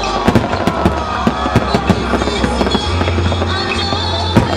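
Fireworks going off in quick succession, a rapid run of sharp bangs and cracks several times a second, with music playing under them.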